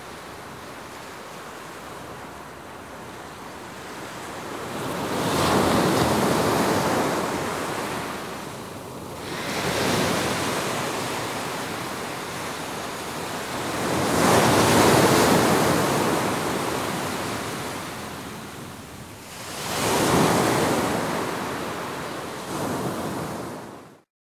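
Sea surf: waves breaking and washing up a beach, swelling up and dying away four times, a few seconds apart. It cuts off suddenly just before the end.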